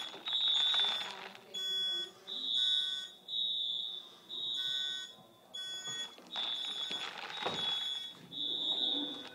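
Building fire alarm sounding a high-pitched beep in groups of three with a pause between groups: the temporal-three evacuation signal of a fire drill.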